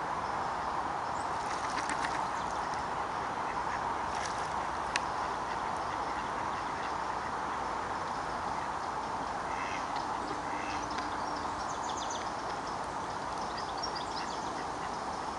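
Mallards quacking now and then, with a cluster of calls about two-thirds of the way through, over a steady background hiss.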